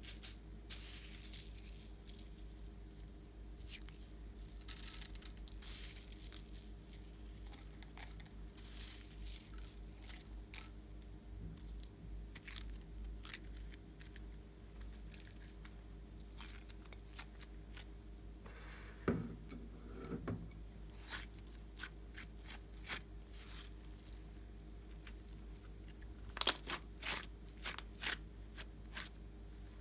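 Hands stirring loose plastic sequins and squeezing and stretching glossy slime: crackling clicks and rustles with sticky pops. The loudest bursts come about two-thirds of the way through and again near the end.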